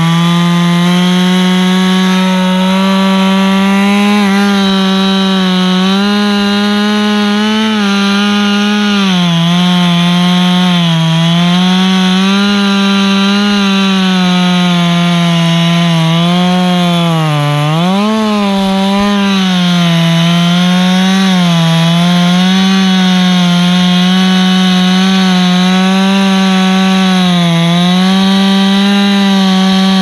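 Gas chainsaw running at full throttle as it cuts through a pine trunk. The engine note sags several times as the bar bites in, most deeply about 17 seconds in, and picks back up each time.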